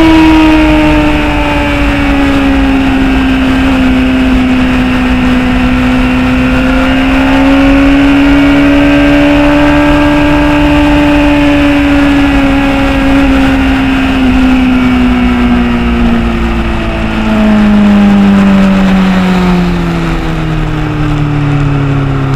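Motorcycle engine running at cruising speed, heard from the bike itself, with wind rushing over the microphone. The engine pitch holds nearly steady, rises slightly midway, then falls over the last several seconds as the bike slows.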